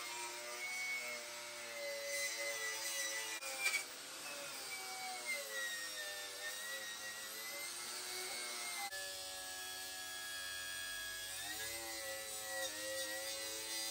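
Corded angle grinder stripping the paint off a steel car tailgate down to bare metal. The motor's whine dips in pitch as the disc is pressed into the panel and climbs back as the load comes off.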